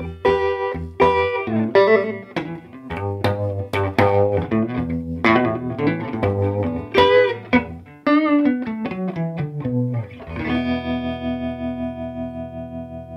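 Electric guitar played through an early-1960s Davoli D531T valve amplifier with its fast tremolo on: picked notes and chords, then a descending bass run. A final chord is left ringing and fading, its volume pulsing with the tremolo.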